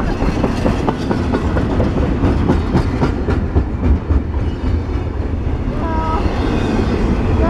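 Double-stack intermodal freight train's well cars rolling past, a loud steady rumble with rapid clicking of wheels over the rail joints.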